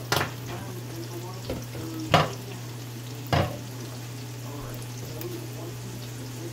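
Diced carrots and green peas frying in oil in a wok, a steady sizzle over a low hum. Three sharp knocks come in the first three and a half seconds, the middle one loudest.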